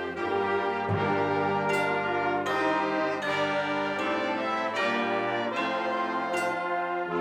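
High school concert band playing brass-led music: held chords from trombones, horns and trumpets, with a few sharp accents.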